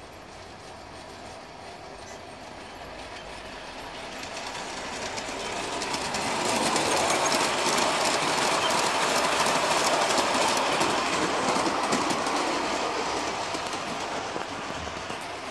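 Large-scale garden railway model train running along the track: its wheels rumble and click over the rail joints. The sound grows as it approaches, is loudest as it passes close about six to twelve seconds in, and fades as it draws away.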